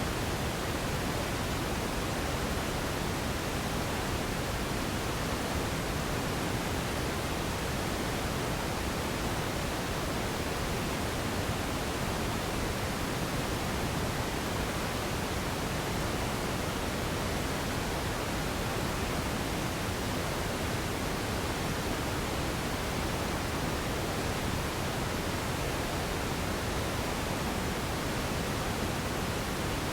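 Radio static: a steady, even hiss of noise spread across all pitches, with no tones, crackles or changes.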